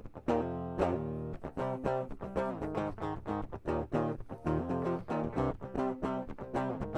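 Direct-input (DI) electric guitar track from a pop punk multitrack session playing back a rhythmic picked riff. It has a clean, close, unamplified tone, with a steady stream of note attacks.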